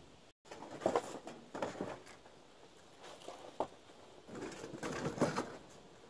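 Cardboard boxes being handled and lifted: irregular rustling and scraping with a few sharp knocks, loudest about five seconds in.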